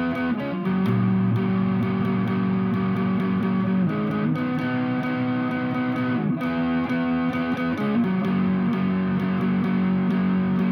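Instrumental guitar intro to a song: held, effects-laden chords that change every few seconds.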